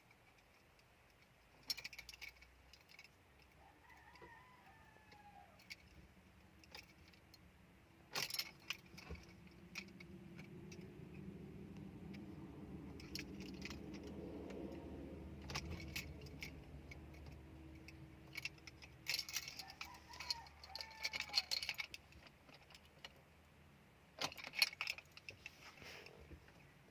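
Car keys jangling and clicking in several short bursts. A low rumble swells and fades in the middle, and a few faint chirps are heard.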